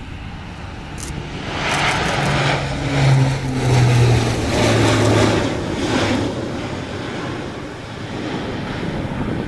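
Antonov An-140's two turboprop engines at takeoff power as the aircraft lifts off and climbs past. A loud propeller drone with a low hum that drops slightly in pitch as it passes swells about a second and a half in, then eases off toward the end.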